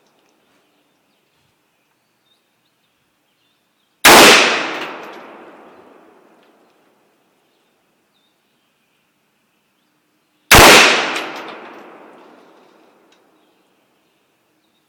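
Two single AR-15 rifle shots about six and a half seconds apart, each very loud and sharp with a long echo that trails away over a couple of seconds.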